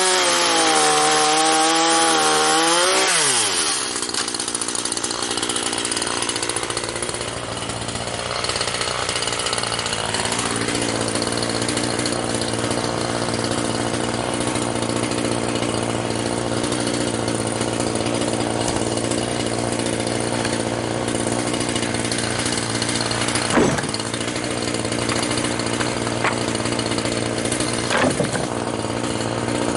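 Chainsaw at high revs cutting through sawmill scrap wood for the first few seconds, its pitch wavering under the load. It then drops back and runs at a lower, steady speed, with a couple of sharp knocks near the end.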